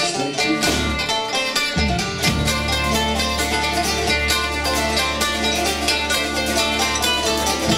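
Acoustic folk band playing an instrumental passage: strummed acoustic guitar with a banjo picking quick notes. Low bass notes join about two seconds in.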